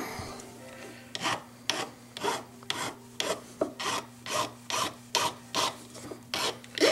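A flat hand file rasping across the outside of a jeweller's small metal bezel setting in short strokes, about two and a half a second, starting about a second in. The file is thinning the top of the bezel wall so it can later be pushed over the stone.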